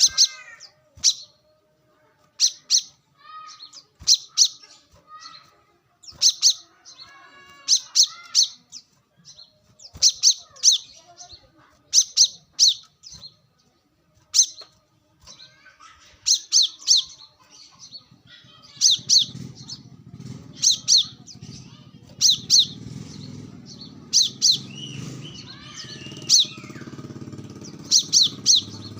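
Brown-throated sunbird giving sharp, high chirps, singly or in quick pairs and threes every second or two, with fainter lower calls of other birds behind. About two-thirds of the way through, a low motor rumble comes up and stays under the chirps.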